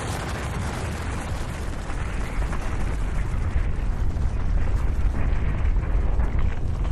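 Snow and rock avalanche rumbling, a deep continuous rumble with a rushing hiss over it, growing louder from about two seconds in.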